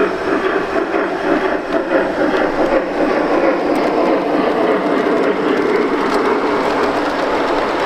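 G-scale model steam locomotive, a Union Pacific 844, hauling a long freight train past on the track: a steady, even running rumble of the train on the rails.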